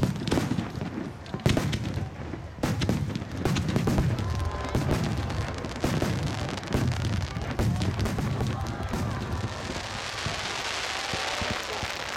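Starmine fireworks barrage: a rapid run of shells bursting, with sharp cracks and deep booms that echo. Near the end the bangs thin out and crowd applause swells.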